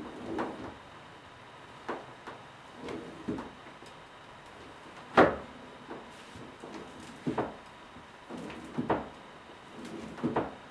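Irregular knocks and taps, about a dozen, the loudest about five seconds in.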